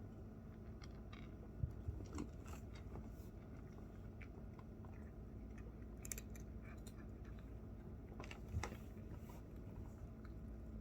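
A cat chewing a crunchy treat: faint, irregular little crunches, with a soft knock twice.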